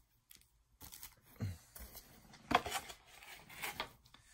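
Cardboard card packs in plastic wrap being handled and set down: a few short rustles and scrapes, with a soft thump about a second and a half in.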